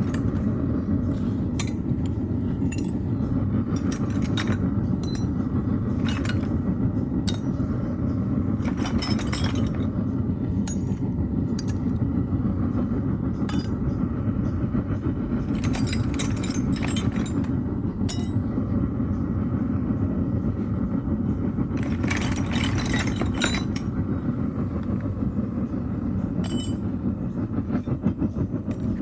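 Metal-melting furnace burner running with a steady low rumble, with sharp metallic clinks scattered through it, some in quick clusters, as pieces of copper scrap are added.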